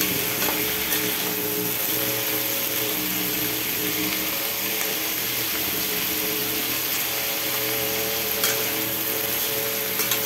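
Shrimp and garlic sizzling in a stainless steel pan: a steady frying hiss, with a few light clicks of the spatula against the pan about a second in and near the end.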